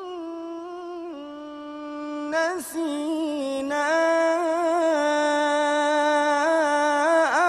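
A solo man's unaccompanied voice in melodic Quranic recitation, holding long notes with wavering ornaments. It steps down a little about a second in, then after a short breath rises into a higher, ornamented line.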